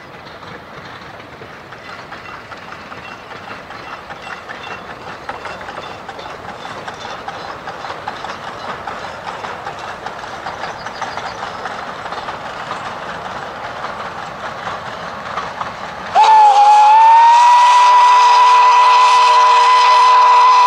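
Narrow-gauge steam train running, its noise growing steadily louder as it approaches. About three-quarters of the way through, the locomotive's steam whistle sounds, loud and held, a chord of several steady tones with a slight dip in pitch as it opens.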